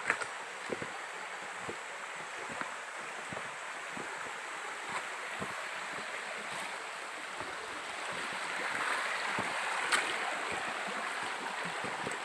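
Steady rush of flowing water from a stream or waterfall, swelling a little about eight seconds in, with scattered light clicks and knocks over it.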